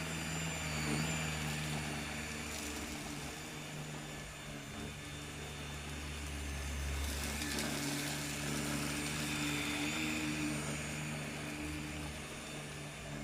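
A motor running steadily with a low rumble and a steady hum, its pitch shifting slightly about halfway through.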